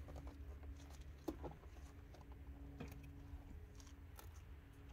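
Near silence: a faint steady low hum with three faint taps, about a second and a half apart.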